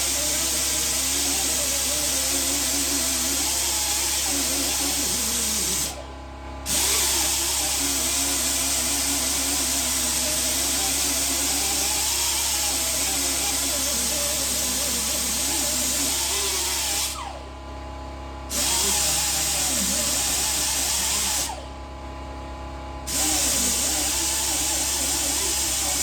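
Compressed air hissing steadily through an air-powered suction cup dent puller. It cuts off briefly three times, each stop lasting about a second, then starts again.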